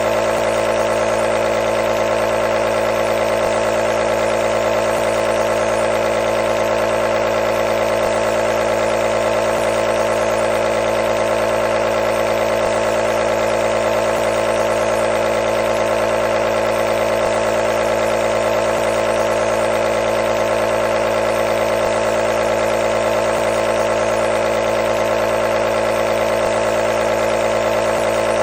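Nebulizer running continuously, a steady, unchanging mechanical hum from its motor.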